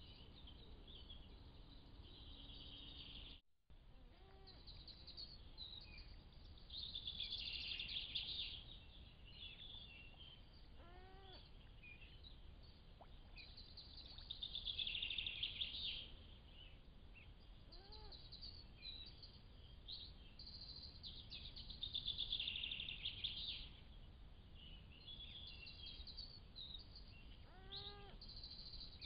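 Birds singing in several bursts, faint over a steady low hiss, with a short call that rises and falls heard three times. The sound cuts out for a moment a few seconds in.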